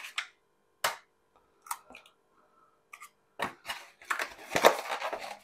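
A raw egg cracked on the rim of a plastic mixing bowl: one sharp tap about a second in, a few lighter taps, then a run of shell crunching and crackling near the end as the shell is broken open.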